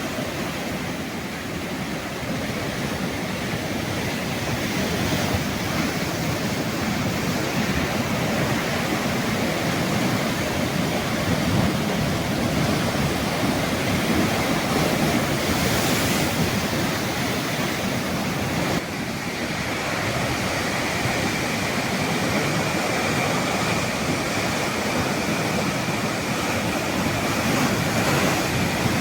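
Sea waves washing onto a shore: a continuous, dense rush of surf that swells and eases slowly.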